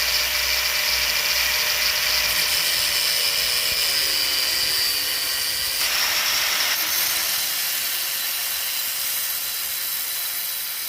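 A small high-speed power tool whining steadily as it cuts a corner off the windage tray to clear the oil pickup tube. Its pitch dips slightly about halfway through and the sound turns grittier.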